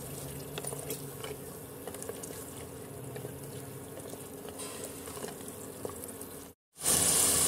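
Yogurt and mutton being stirred and fried with a wooden spatula in an aluminium pressure cooker: faint sizzling and bubbling, with light scrapes and clicks of the spatula against the pot. Near the end, after a brief gap, a louder sizzling hiss starts.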